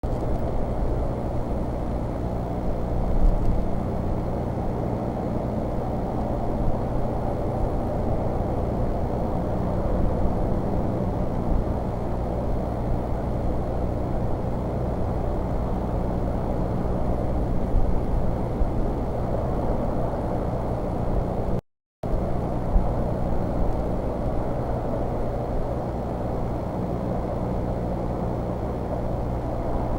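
Steady low rumble with a low hum from an outdoor eagle nest-cam microphone. It cuts out completely for a moment a little after two-thirds of the way through.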